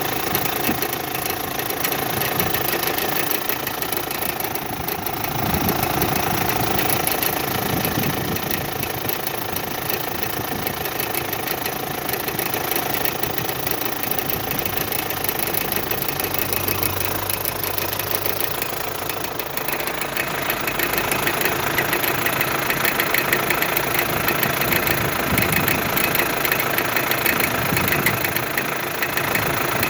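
Hyundai Santa Fe Classic's CRDi common-rail diesel engine idling cold in its warm-up mode, with a fast, even crackle over the idle: an unfamiliar noise that shows only while the engine is cold. About twenty seconds in, the sound turns brighter and a little louder.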